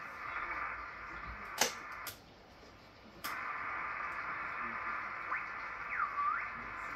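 Ham radio receiver hissing with band static through its speaker. Several sharp clicks from the radio's controls come in the first few seconds, and the hiss cuts out for about a second. Near the end short whistling tones glide down and back up as the receiver is tuned across signals.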